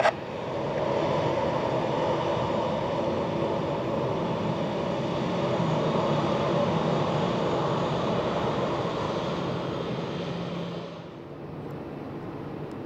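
Jet engines of a taxiing Gulfstream G650 running at low taxi power, a steady rushing hum with a faint whine. It drops lower and duller about eleven seconds in.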